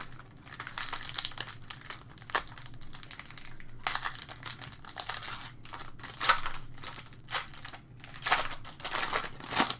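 Foil wrapper of a trading-card pack being torn open and crinkled by hand, in a run of irregular crackling bursts that are loudest near the end.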